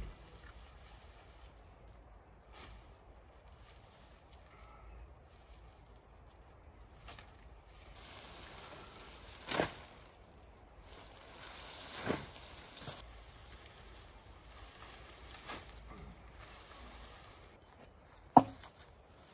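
Long green leaves rustling and swishing as they are laid over a shelter roof for thatch, with a short sharp knock near the end. A faint high chirp repeats about two or three times a second in the background.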